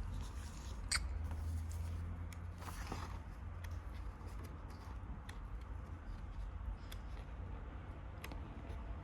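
Paper and packaging being handled: soft rustling, with scattered small clicks and taps, brief rustles about a second in and around three seconds in.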